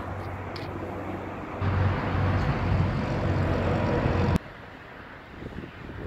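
A heavy-equipment diesel engine running steadily with a low hum, getting louder about a second and a half in and cutting off suddenly after about four seconds, followed by quieter outdoor noise.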